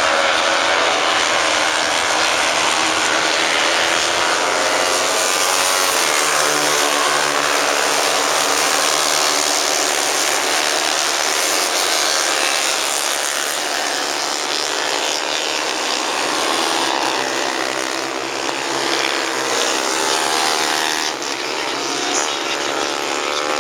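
A pack of small-displacement racing motorcycles running at high revs, many engines buzzing over one another, their pitch rising and falling as the bikes pass. The sound eases a little about three quarters of the way through, with single engines rising in pitch near the end.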